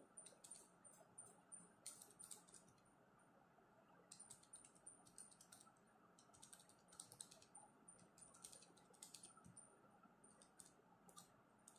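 Faint clicking of calculator buttons being pressed in short runs with pauses between, as a sum is keyed in.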